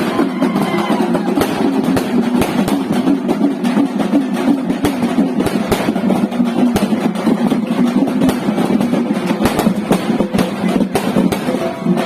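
Loud music with drumming: a dense, continuous din laced with frequent sharp drum strikes.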